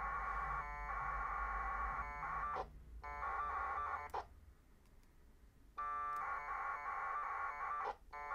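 1200-baud AX.25 packet radio data bursts from a Direwolf soundcard modem link: buzzing, warbling data tones in four bursts of one to two and a half seconds each, with a pause of about a second and a half in the middle. These are connection and acknowledgement frames passing between the station and a packet node.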